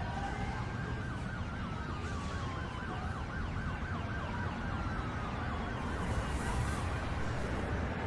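Emergency vehicle siren in a fast yelp, its pitch sweeping up and down several times a second and drifting slightly lower, over a low steady city rumble.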